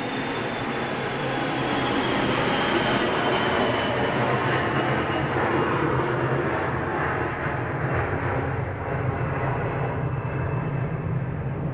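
Airplane passing overhead: a broad engine rumble with a high whine that slowly falls in pitch. It swells to its loudest a couple of seconds in and then holds steady.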